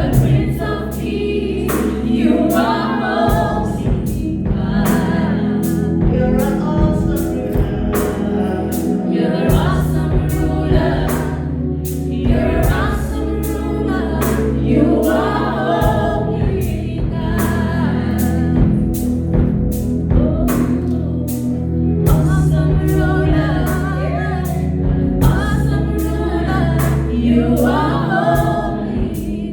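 Gospel worship song sung by a group of voices with a band: long held bass notes and a steady drum beat.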